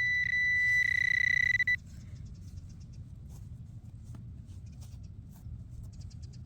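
Metal detector signal tone: a high, steady beep pulsing on and off several times, then held solid for about a second before cutting off near the two-second mark as it homes in on a buried target. Faint clicks and scrapes follow.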